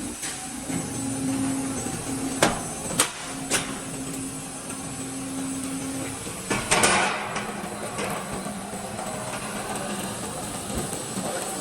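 Roll forming machine for steel C and Z profiles running: a steady motor hum with three sharp metallic knocks a little over two seconds in, then a louder burst of metal clanking about seven seconds in.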